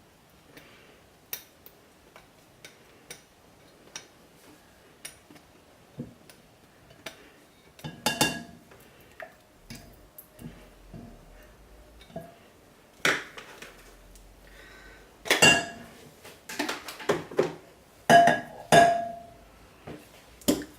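Utensil clinking and knocking against a mixing bowl: light taps at first, then several louder knocks that ring briefly.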